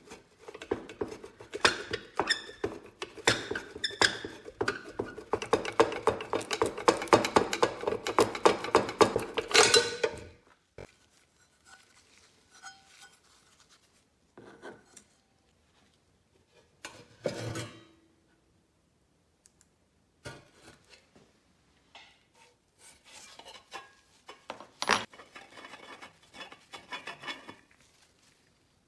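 Sheet-metal and steel parts of a vintage Northwestern Model 60 vending machine rattling and scraping as they are taken apart by hand. There is a dense run of rapid metal clatter for about the first ten seconds, then scattered knocks and light rattles, with one sharp click near the end.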